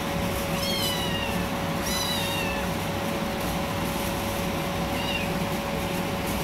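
Young tabby-and-white kitten meowing three times: two high-pitched meows falling in pitch about a second and two seconds in, then a short one near the end. A steady hum runs underneath.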